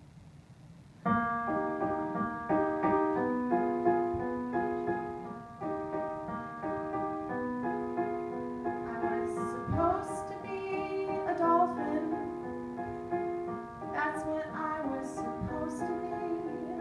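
Electric keyboard playing a slow run of piano chords, starting about a second in, with a woman singing over it from about halfway through.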